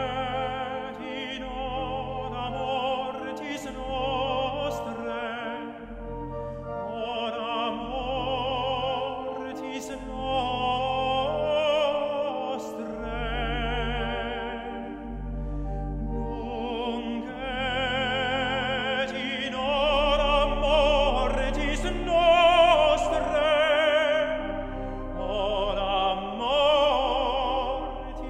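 Tenor singing a classical song with vibrato, accompanied by a church organ holding sustained low pedal notes.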